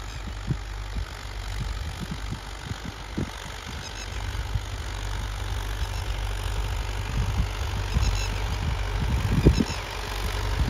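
Tractor diesel engine running steadily under load while pulling a plough, with wind buffeting the microphone in sharp low gusts, the strongest near the end.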